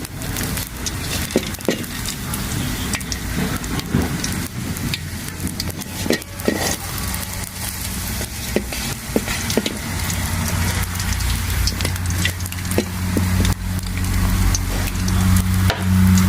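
Flatbread dough frying in oil in a pan over a fire, sizzling steadily with scattered sharp clicks and crackles. About two-thirds of the way in a low steady hum comes up and grows louder.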